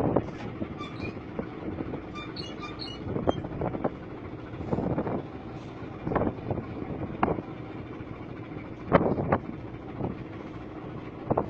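Steady hum of a ship's engine heard on deck, with short rushing bursts of wind or water every second or two.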